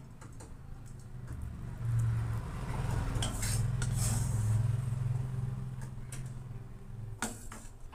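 Clinks of a metal spoon and a stainless steel plate against a cooking pan, a few sharp ones in the middle and near the end, over a low steady hum that grows louder for a few seconds in the middle.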